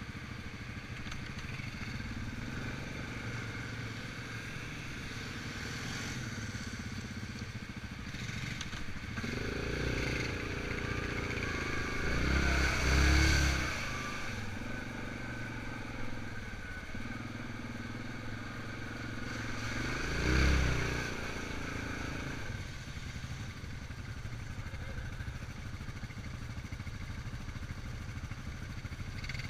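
ATV engine running as the machine is ridden, with the throttle opened into two louder revs, the first about a third of the way in and the second about two-thirds through.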